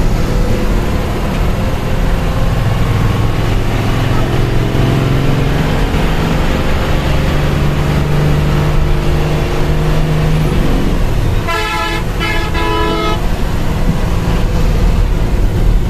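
Coach engine heard from inside the cabin, running hard at highway speed with its drone climbing slightly in pitch. About three quarters of the way through, a vehicle horn sounds in two blasts, the second longer.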